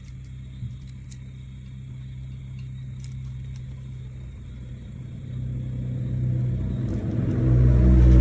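A low, steady motor-like rumble with a few faint clicks, growing gradually louder and then swelling sharply near the end.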